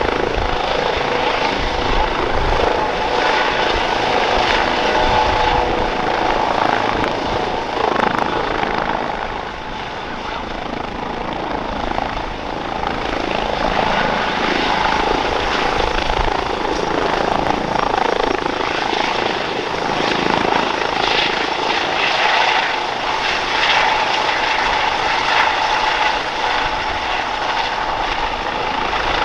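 Eurocopter EC135 P2+ helicopter hovering low just after lift-off, its twin Pratt & Whitney PW206B turboshaft engines and rotors running steadily, loud and close. The level dips briefly about ten seconds in.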